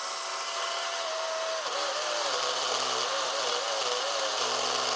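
HO-scale slot car's small electric motor whining at full speed while its silicone tires spin against sandpaper, truing them. The whine is steady at first, then dips and wavers in pitch from about two seconds in as the tires bear on the sandpaper, over a constant hiss.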